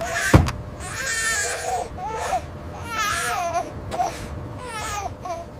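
A baby crying in a run of wavering wails, one after another, with a sharp knock just after the start.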